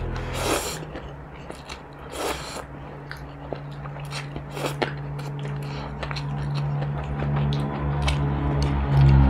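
Close-miked eating sounds: instant noodles slurped a few times in short wet pulls, with chewing and small mouth clicks between them.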